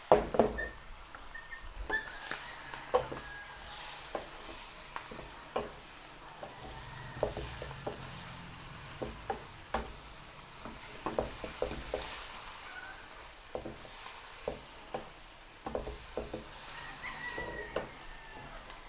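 Wooden spatula stirring a squid stir-fry in a granite-coated wok, tapping and scraping against the pan at irregular moments over a steady sizzle. The loudest knock comes right at the start.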